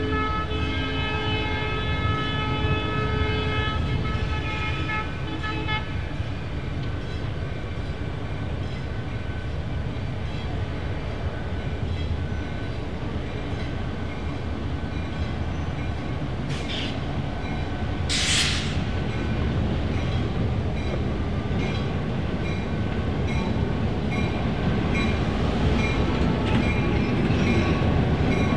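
Diesel locomotive-hauled train running past, its multi-note air horn chord sounding until about six seconds in, then the steady rumble of the engine and wheels on the rails. Two short hissing bursts come about two-thirds of the way through, and the train grows louder near the end.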